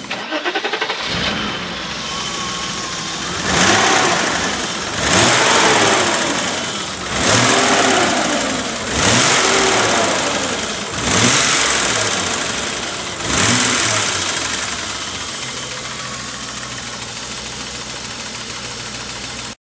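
BMW M30B35 straight-six engine of an E34 535i revved six times in short blips, each rising then falling back, before settling to a steady idle. This is the engine being shown for a knocking noise, with its rocker-arm valve clearance set to 0.30 mm.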